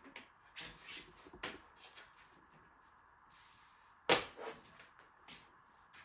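Handling sounds with no vacuum running: several light knocks and clicks in the first second and a half, then one louder knock about four seconds in, followed by a couple of softer ones.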